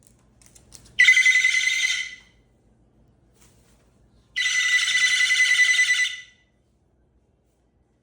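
Moluccan cockatoo giving two loud, harsh screeching calls, each lasting about one and a half to two seconds, with a pause of about two seconds between them. These are contact calls for people who have gone out of sight.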